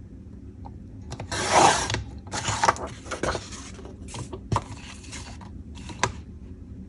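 Old magazine paper being cut and handled: several bursts of crisp rustling and scraping, the loudest about a second and a half in, with a sharp click near the end.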